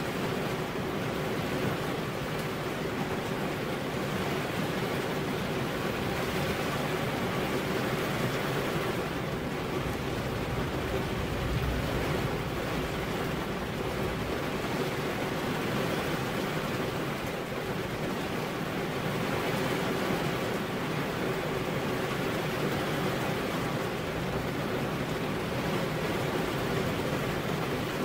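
Steady rain falling on a window, an even hiss of water with a faint steady hum beneath it.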